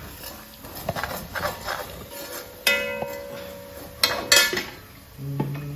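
Metal kitchen utensils clattering. About three seconds in, a metal vessel is knocked and rings on a steady tone for over a second, and a louder sharp clatter follows about a second later.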